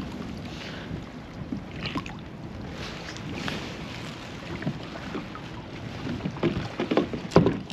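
Water lapping around a kayak with wind on the microphone, and light handling clicks as a small fish is lifted aboard on the line; a cluster of sharper knocks and rattles comes near the end.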